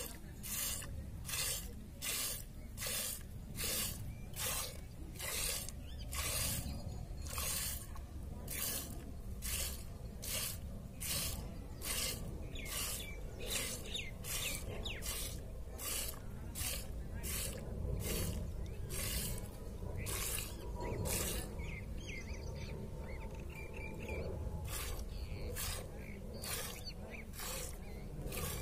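Jets of milk squirting from a cow's teats into a stainless steel bowl during hand milking, a short hissing spurt about twice a second. The spurts pause briefly about three-quarters of the way through, then start again.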